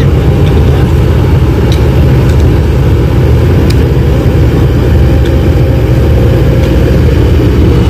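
Kobelco SK200-8 excavator's diesel engine running steadily, loud and close, with a deep low hum that does not change.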